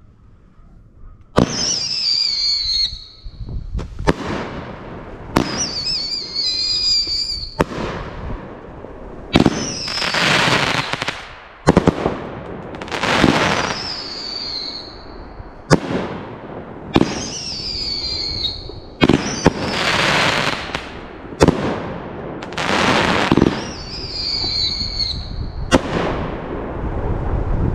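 T-Sky "4th of July" 18-shot 500-gram firework cake firing shot after shot, with a sharp bang every second or two. Many shots carry a warbling whistle tail that falls in pitch over about a second and a half.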